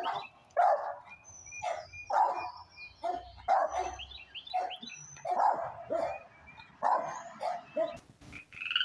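A dog barking repeatedly, roughly every half second to second, with birds chirping thinly in the background.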